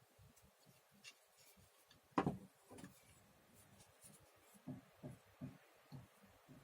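Handling of a router plane and its packaging: one sharp knock about two seconds in, a softer one just after, then a few light knocks and rubbing near the end.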